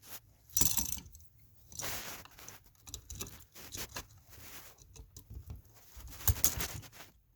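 Irregular small clicks, scrapes and rustles of hand tools and wires being worked at an electrical outlet. A sharp click about six seconds in is the loudest.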